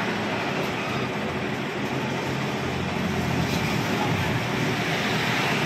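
Homemade carpet spin-dryer built from a used drum, running steadily: a continuous mechanical hum with an even rushing noise over it.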